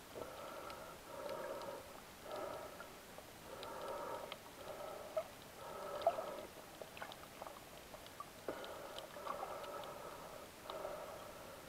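Underwater sound picked up through an action camera's housing: muffled, rhythmic whooshes about once a second from a snorkeler swimming, with scattered faint clicks.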